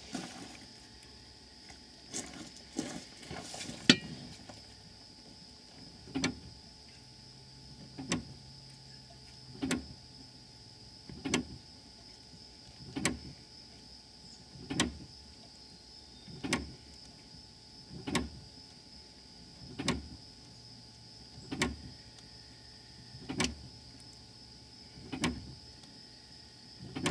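Faint, evenly repeated knocks about every second and a half as the brake pedal is pumped in short strokes to bleed the rear brake caliper, pushing brake fluid and air bubbles out through the open bleed nipple into a clear hose. A faint steady high whine lies underneath.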